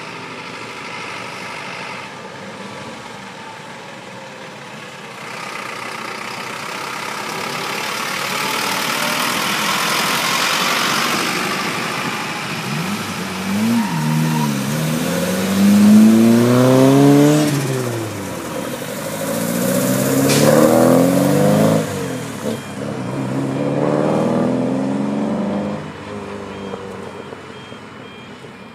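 Cars driving past one after another. A rush of engine and tyre noise builds, then from about halfway through engines accelerate past in several sweeps that rise and fall in pitch.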